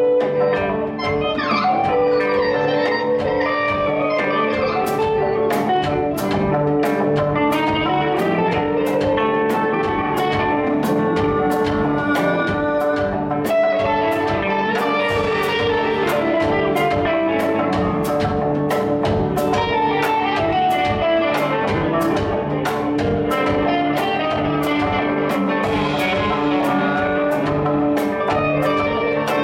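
A live instrumental jazz-rock band playing: electric guitar lines over bass and drum kit, no singing. From about five seconds in a cymbal keeps a steady beat of about two strokes a second.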